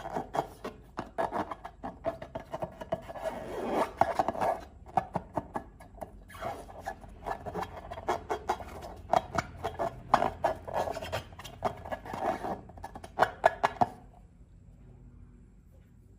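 Slime being worked by hand, squished and stretched with close, sticky crackling and rubbing clicks, stopping about fourteen seconds in.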